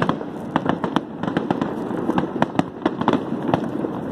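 Fireworks going off: an irregular, rapid series of sharp bangs and crackling pops, several a second, over a continuous rumble.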